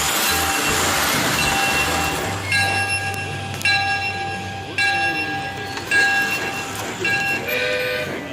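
Electronic sound effects from a toy: fixed-pitch tones that switch on and off in a repeating pattern over a low hum.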